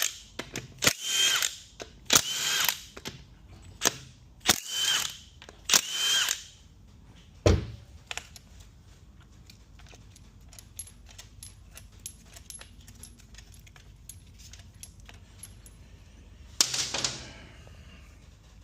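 Power tool spun in short bursts, about six in the first six seconds, as transmission fasteners are worked loose. A single heavy thud follows, then faint small clicks of parts being handled, and one more burst near the end.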